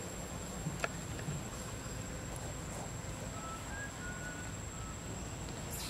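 Forest ambience: a steady high-pitched insect drone over a low rumble, with a single sharp click about a second in and a few faint short whistles in the middle.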